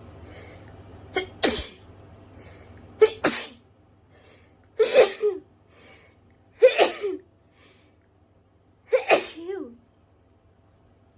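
A person sneezing five times in a row, roughly two seconds apart, with faint breaths between: an allergic hay fever sneezing fit.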